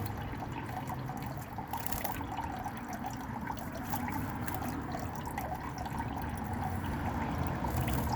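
Water trickling and pouring steadily onto garden plants as they are watered.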